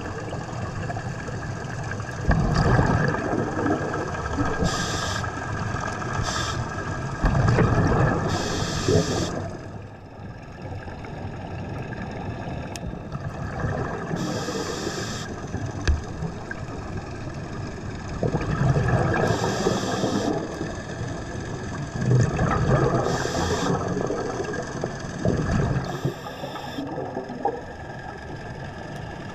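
Scuba diver breathing through a regulator underwater: short hissing inhalations alternate with louder bubbling, rumbling exhalations, several breaths in a row, over a faint steady tone.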